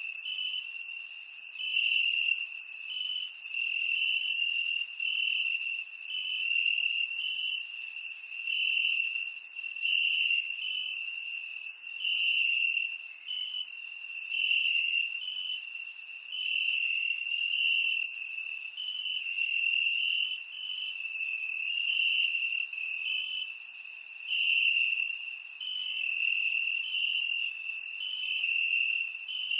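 Crickets chirping in a continuous high-pitched trill, with louder chirps pulsing about once a second over the steady chorus.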